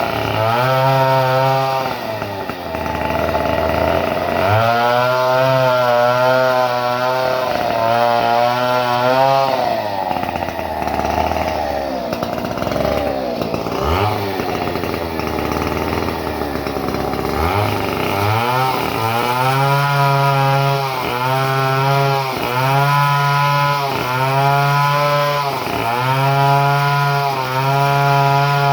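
Two-stroke chainsaw engine being revved in repeated short throttle bursts, dropping back between them. The middle stretch runs lower and unsteady, then near the end the blips come quickly and evenly, about one a second.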